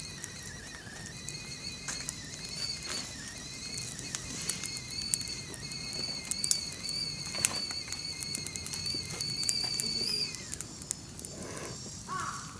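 Campfire crackling with sharp snaps, under a steady high whistle that wavers slightly and stops near the end.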